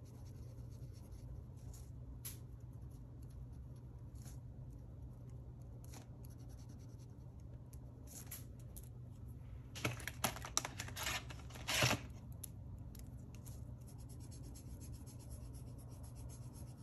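Pen scratching on paper while colouring in a printed chart: sparse faint strokes, with a quick run of louder scratching strokes about ten to twelve seconds in, over a steady low hum.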